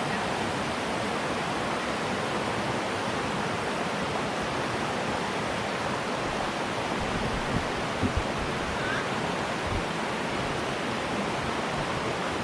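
Iao Stream running fast, a steady rush of water. A few brief low bumps come about eight to ten seconds in.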